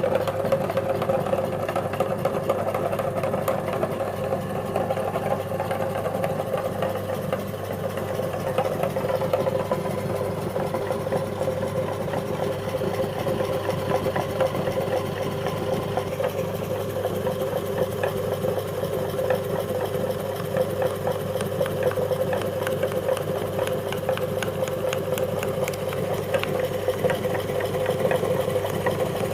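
Electric meat grinder motor running steadily with a constant hum, grinding biscuits with a fine crackle throughout.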